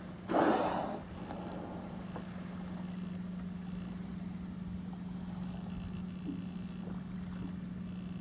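A male orca's blow, one short breathy burst about half a second in, over the steady hum of an idling boat engine.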